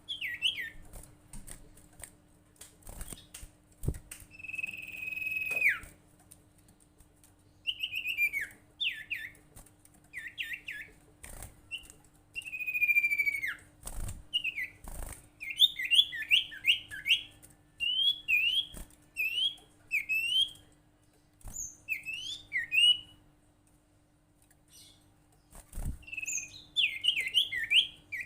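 Sirtu songbird calling: bursts of sharp, quick chirps, many sliding downward, strung in fast runs with short pauses between them. A faint steady hum runs underneath.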